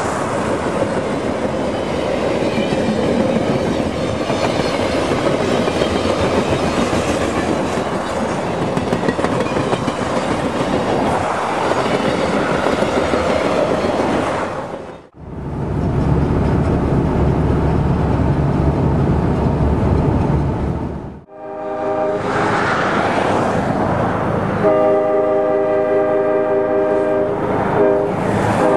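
Alaska Railroad freight train's flatcars and caboose rolling past with a steady rushing rattle of wheels on rail. After a cut comes several seconds of deep low rumble. After a second cut, the train's horn sounds a series of blasts in the distance, the later ones long.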